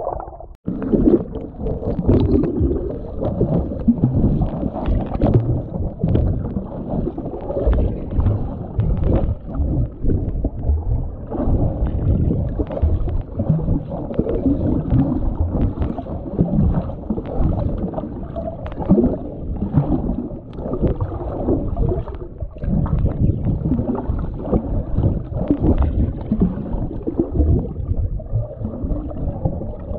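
Muffled underwater sound through a GoPro's waterproof housing: low, irregular water churning and bubbling around the camera, with scattered small clicks.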